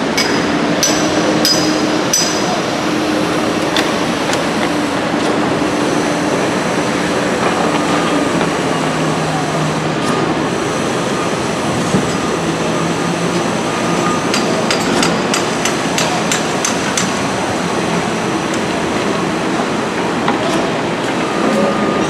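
Concrete construction site: truck diesel engines running with a steady hum that shifts in pitch, and several short runs of sharp metal hammering taps near the start, in the middle and near the end.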